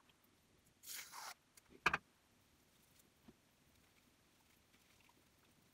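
A short hiss of shaving foam sprayed from an aerosol can about a second in, then a single sharp knock; after that near silence.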